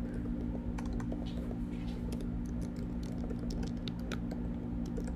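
Computer keyboard typing: irregular runs of key clicks, over a steady low hum.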